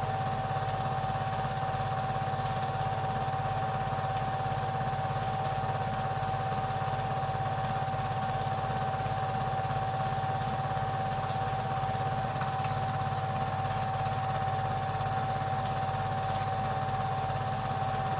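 Super 8 film projector running steadily: an even motor hum with a constant whine and a fast mechanical clatter, with no change.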